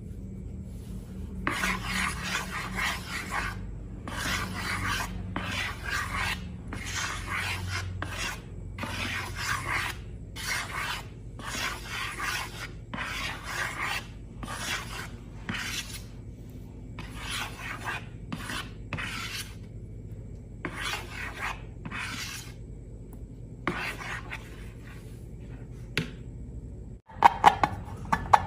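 Slime being worked in an ASMR slime-making session: a series of rasping, rubbing strokes, roughly one a second, ending in a few sharp clicks near the end.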